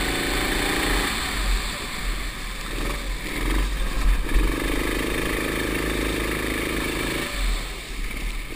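Go-kart engine heard on board, running hard at first, then dropping away about a second in as the kart slows for a tight corner, picking up again at about five seconds and easing off again near the end.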